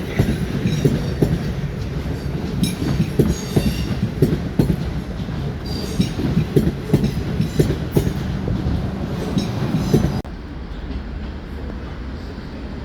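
A train passing close by, its wheels clattering and clicking over rail joints. About ten seconds in the sound cuts off abruptly into a quieter, steady rumble.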